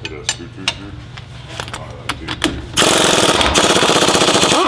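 Impact wrench hammering loudly for about two seconds, starting a little under three seconds in, on a front-suspension bolt whose nut is held with a hand wrench, during strut removal. Before it, light clinks of hand tools on metal.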